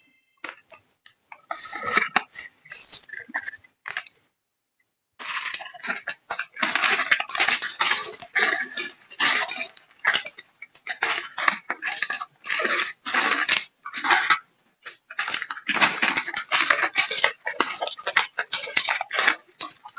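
Hands handling small plastic toy pieces and their packaging: irregular rustling and clattering in quick bursts, with a pause of about a second some four seconds in.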